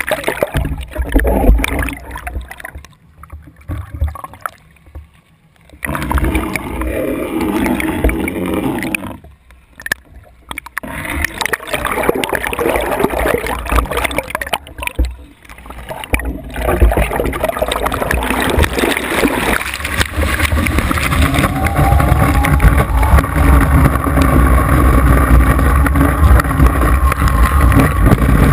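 Water churning and gurgling over a ski-mounted action camera that is largely under water, broken by several muffled lulls. About 17 seconds in, this gives way to a steady loud rush of water and wind as the slalom ski planes across the surface.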